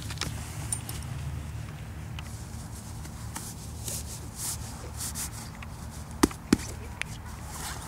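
Nylon fabric of a Micro Sigma parachute container rustling and scraping as its flaps are worked closed by hand, with two sharp clicks about a quarter second apart near the end. A low wind rumble on the microphone runs underneath.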